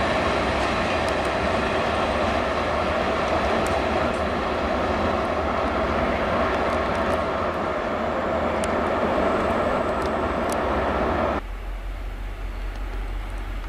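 Freight train of tank wagons rolling past on the rails: a steady rumble of wheels with a few faint clicks. About eleven seconds in it cuts off abruptly to a quieter, steady low rumble.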